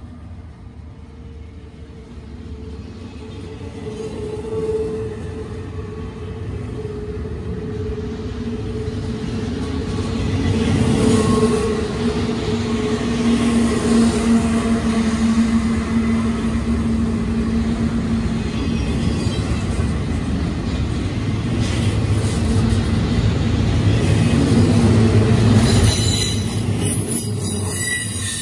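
Double-stack intermodal freight cars rolling past on the rails, a steady rumble of wheels and cars that grows louder, with high-pitched wheel squeal setting in near the end.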